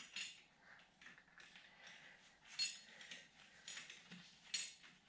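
Faint metallic clinks and clicks of steel parts being handled on a truck's rear axle hub as a washer is fitted, with a few sharper clinks about two and a half, three and a half and four and a half seconds in.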